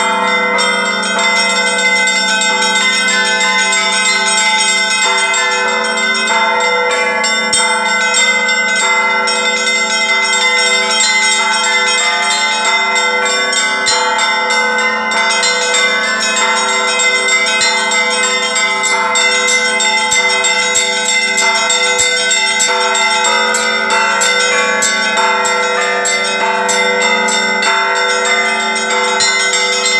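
Orthodox church bells ringing continuously. Many smaller bells are struck in quick, overlapping patterns over the steady hum of a deeper bell.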